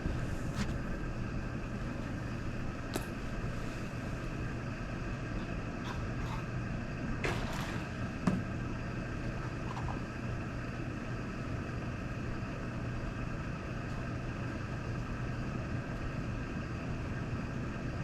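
Steady drone of motor traffic with a constant hum. A few faint clicks, a short hiss, and one sharp knock about eight seconds in, the loudest sound.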